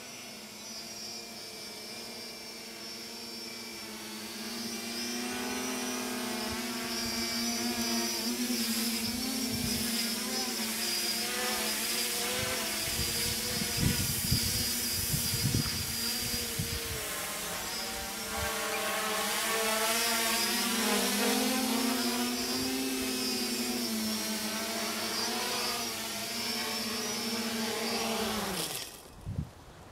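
Quadcopter's brushless motors and propellers hovering: a steady buzzing hum whose pitch wavers up and down as the craft sways back and forth in loiter mode, which the owner thinks needs PID tuning. A few low gusts of wind noise come midway, and near the end the motors spin down and stop.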